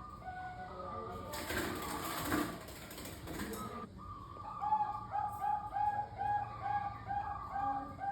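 Zebra dove of the Thai 'Bangkok' line cooing its stepped, repeated song, a burst of rustling noise covering it for a couple of seconds early on, then a quick even series of coo notes, about two to three a second.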